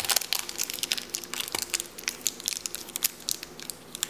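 Crinkly plastic packaging being crumpled and torn open by hand, a dense run of irregular crackles, to get at a small surprise toy inside.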